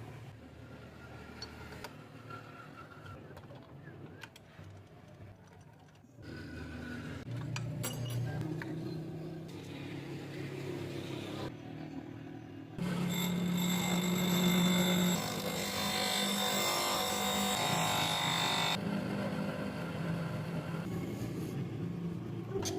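Electric hand planer motor running with a steady high whine, in several separate takes. The loudest run is in the middle and lasts about six seconds.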